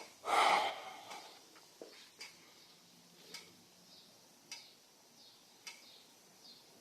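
A short breathy rush about half a second in, then faint, sharp, evenly spaced ticks a little more than a second apart.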